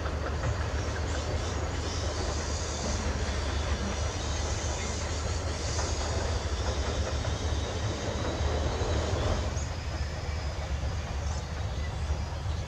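Kubota M9540 tractor's four-cylinder diesel engine running steadily under load as it pulls a disc plough through stony ground, with a deep continuous rumble. It eases off slightly near the end.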